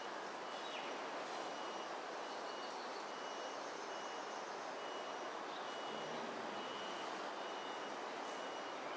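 Steady hum of distant traffic, with a faint high beep repeating over and over and a few short falling chirps on top.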